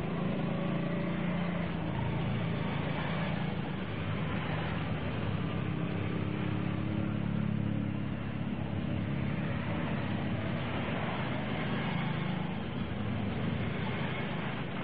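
Motorcycle engines running steadily as a group of motorcycles rides past one after another.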